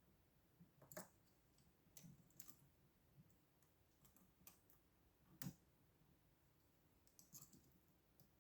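Faint, irregular metal clicks of lock picks working in a lock cylinder. The sharpest click comes about a second in, and a louder one at about five and a half seconds.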